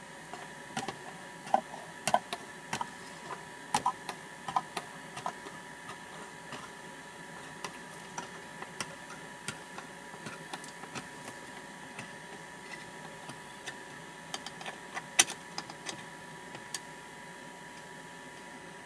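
Irregular light clicks and taps over a steady faint hum. The clicks come thick in the first five seconds and scattered after, with one sharper click about fifteen seconds in.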